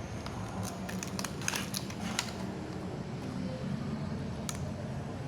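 A few sharp clicks and light crinkling of a small product's packaging being handled, over a steady low hum; the clicks bunch together between about one and two seconds in.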